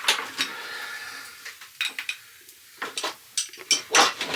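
Metal pots and utensils clinking and knocking against each other and their hooks as they are hung up, with a brief ringing about a second in and the loudest knocks near the end.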